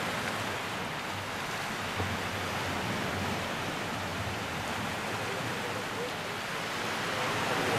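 Steady wash of surf on the beach, an even rushing noise without distinct breaks.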